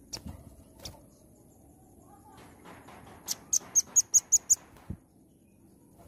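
Velvet-fronted nuthatch calling: a couple of single sharp high chips at the start, then a little past halfway a fast run of about eight sharp chips, about six a second. A dull knock follows near the end.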